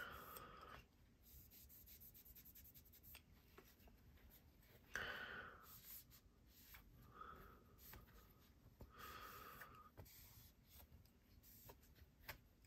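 Faint rubbing of a microfiber cloth being wiped along a folding knife's steel blade to take off Knife Shield spray and tape adhesive, with a few light ticks.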